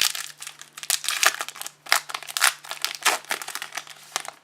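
Plastic wrapper of a trading card pack crinkling and crackling as it is handled and torn open, in quick irregular bursts.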